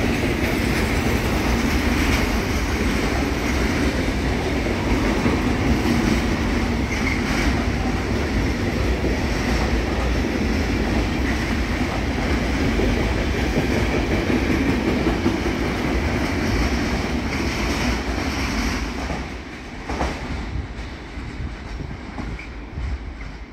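Long container and trailer freight train rolling past, a steady loud noise of wagons running on the rails. About nineteen seconds in the last wagon goes by and the sound fades away, with a single sharp knock just after.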